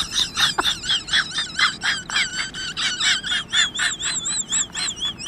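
An animal's high-pitched chirping: a fast, even series of short calls, about four a second, each wavering in pitch.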